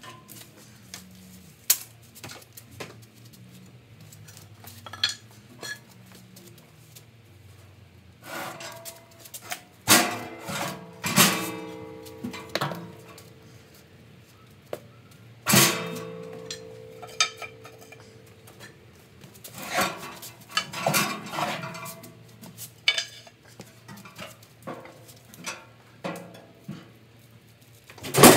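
Steel body of a depository safe clanking as it is rocked and tipped over onto its back: a run of metal knocks, the loudest about ten seconds in and again mid-way, several leaving a short metallic ring.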